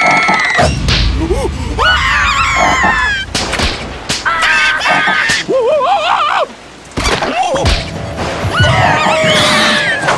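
Animated cartoon soundtrack: high, wavering cartoon voices screaming and squealing over music, broken by a few sharp hits.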